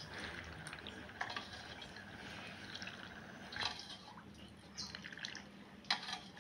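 Cooled brine being ladled out of an aluminium saucepan with a plastic ladle and poured over fruit in a glass bowl: faint dripping and trickling, with a few light clicks of the ladle against the pot.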